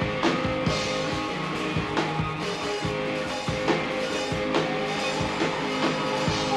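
Live instrumental rock from electric guitar and drum kit: sustained guitar chords over steady drum and cymbal hits in the song's closing bars, with a guitar note sliding down in pitch near the end.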